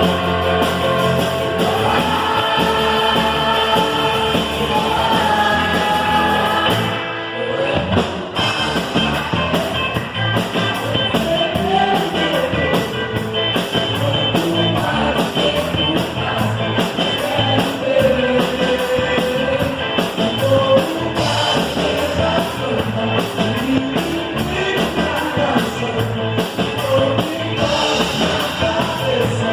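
Live worship band playing a rock-style song, with drum kit and singing. The music drops briefly about seven seconds in, then comes back in full.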